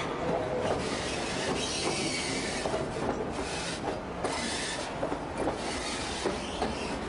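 White Pass & Yukon Route narrow-gauge passenger car running along the track: a steady rumble and hiss with irregular clicks and clatter from the wheels and car, heard from the open platform.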